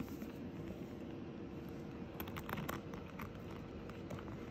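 A hand rubbing and parting a dog's fur close to the microphone, giving a short run of soft crackling rustles a little past the middle over a faint steady hum.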